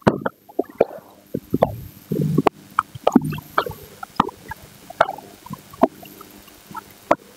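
A handheld whiteboard eraser being wiped across a whiteboard in a run of short, uneven rubbing strokes, with sharp knocks as it meets the board.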